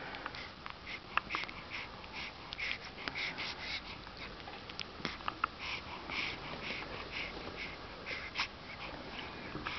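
Baby snuffling and sniffing through its nose in many short, irregular puffs, with small mouth clicks in between.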